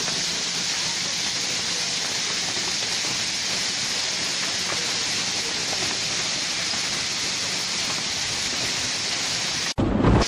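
Heavy rain pouring steadily onto a road in an even hiss. Near the end, after a momentary dropout, a sudden loud crack of a close lightning strike.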